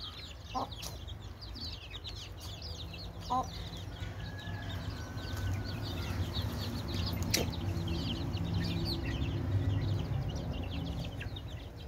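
A flock of young chicks peeping over and over in short, high, falling chirps as they peck for termites. A steady low hum swells under them through the middle, and there is one sharp click partway through.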